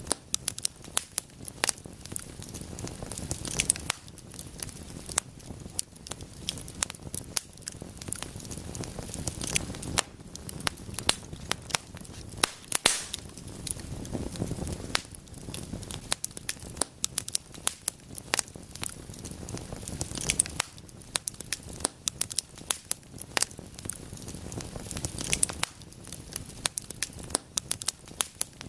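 Wood fire crackling and popping in a fireplace: frequent sharp snaps over a low, steady rush of burning.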